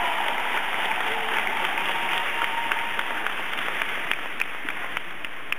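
Spectators applauding a springboard dive. The applause fades and thins out to scattered single claps near the end.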